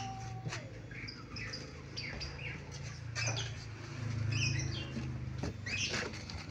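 Small birds chirping in short, scattered calls over a steady low hum, with a few sharp rustles and knocks as newspaper-wrapped papayas are handled.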